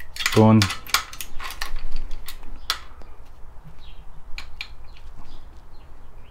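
Light metallic clicks and clinks of small steel valve keepers being picked off a compressed valve spring with a magnetic pickup tool and handled around the spring compressor. The clicks come thick and sharp in the first three seconds, then thin out into fainter ticks.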